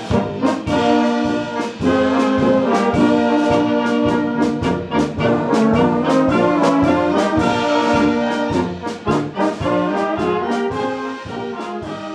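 Bohemian-style brass band playing a polka-like piece, trumpets and trombones over a steady oom-pah beat with drums, the music getting quieter in the last few seconds.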